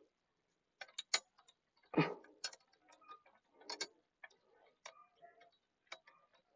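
Scattered light metallic clicks and taps, about a dozen at uneven intervals, as long mounting bolts are hand-threaded into an exhaust bracket on a small motorcycle.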